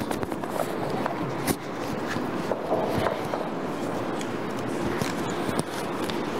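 Indistinct murmur of people in a room, with scattered light clicks and knocks.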